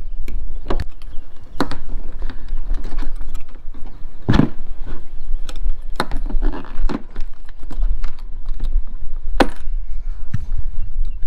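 Keys jangling on a ring while a key is worked in the lock of a plastic rooftop cargo box, with scattered sharp clicks and knocks of metal and plastic at the latch.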